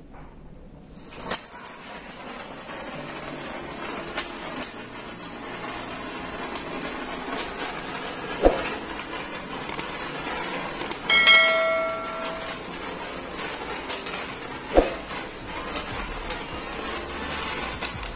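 Hand-held 15 cm coloured sparkler burning with a steady hiss and many scattered sharp crackles, lit from a matchstick at the start. A short ringing chime sounds about eleven seconds in.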